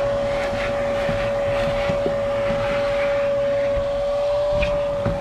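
Handheld vacuum cleaner running on a truck's floor carpet, its motor giving a steady whine at one fixed pitch over the rush of suction, with a few small ticks as bits of debris are sucked up.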